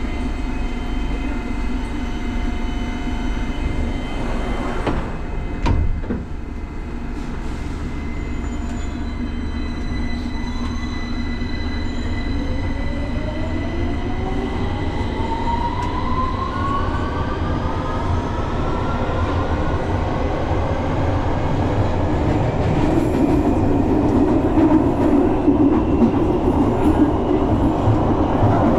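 London Underground Victoria line train pulling away from a station: a thump about six seconds in, then the whine of the traction motors rising steadily in pitch as it accelerates, with the running rumble of the wheels growing louder toward the end.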